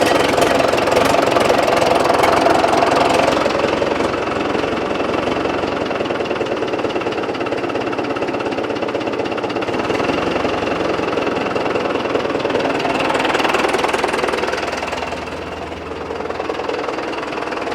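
1961 Case 831C tractor's diesel engine running just after starting up. It runs louder a couple of seconds in and again about thirteen seconds in, then eases off.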